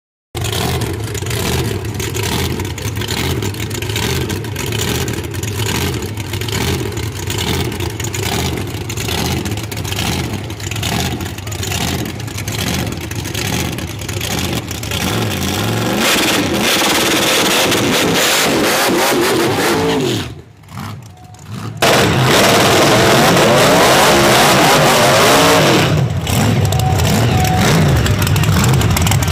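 Big-engined drag race cars running loud: a lumpy idle for the first half, then engines revving up and down. The sound drops away briefly about twenty seconds in, then returns at full loudness.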